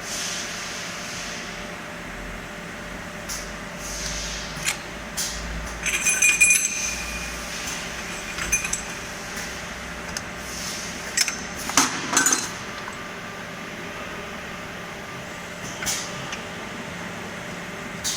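Metallic clinks and knocks of steel rod parts being handled and clamped by an automatic friction welding machine's loading gear, over a steady machine hum. A ringing metal clink comes about six seconds in, and a cluster of knocks around twelve seconds.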